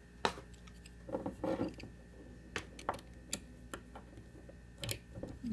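Small metal tools and lock parts being handled on a bench: a few scattered sharp clicks and light knocks with some brief rustling, as the lock is set up to be taken apart with a screwdriver.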